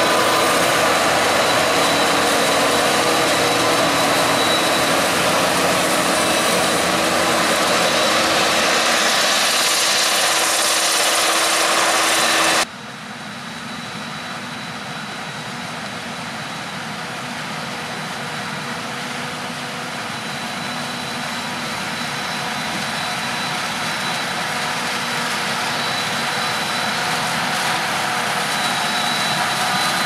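Tractor engines of a Valtra T194 towing a John Deere 6190R through mud, running steadily. About 13 s in the sound cuts abruptly to a Claas Jaguar 970 forage harvester chopping maize beside a tractor and trailer, quieter at first and growing gradually louder.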